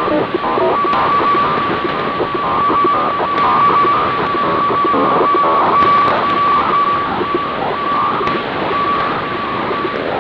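HF weather-fax (radiofacsimile) signal from a Grundig 750 shortwave receiver in upper sideband: a steady tone near 1 kHz that keeps breaking into short dashes, over a constant hiss of static with the odd faint crackle.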